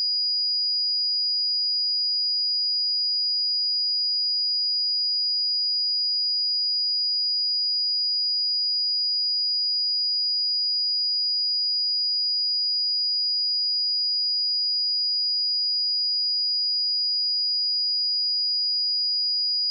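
Steady, unbroken 4896 Hz sine-wave test tone, a single high-pitched pure tone at constant level.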